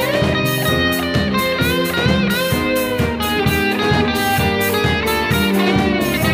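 A rock band playing an instrumental passage of a 1980-era Japanese city-pop song: an electric guitar playing a lead line with bent notes over a steady drum beat and keyboards.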